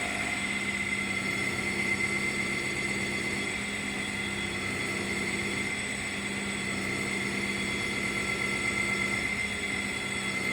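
Sawmill machinery running steadily: a constant hum with a steady high whine and no change in speed.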